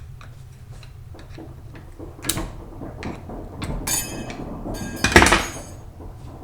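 Metal tools and transmission parts being handled on a workbench: scattered clicks and clinks, a couple of ringing metallic clinks around four seconds in, and the loudest knock a little after five seconds.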